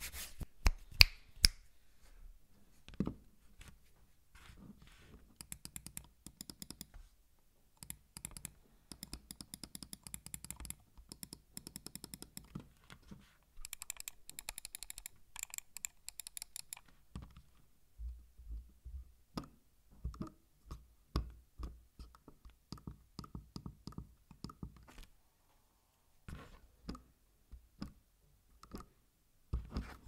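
Logitech MX Anywhere 3 wireless mouse close to the microphone. A few loud taps come in the first couple of seconds. The scroll wheel then turns in three runs of rapid, fine ticking, and from about 18 s on the buttons are clicked one at a time, each a short, crisp click.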